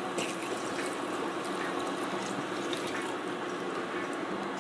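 Red wine poured from a glass into a hot pot of seafood, the liquid splashing in and setting off a steady crackling hiss as it meets the hot pan, deglazing it.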